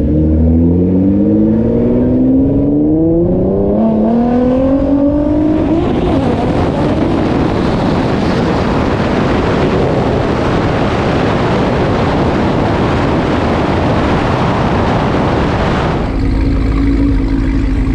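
A car accelerating hard down a drag strip: a rising tone climbs for about six seconds and gives way to a loud, steady rush of noise that cuts off suddenly near the end.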